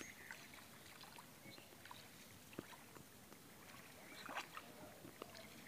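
Faint lapping and splashing of floodwater around a small boat moving through it, with scattered light knocks and a slightly louder splash about four seconds in.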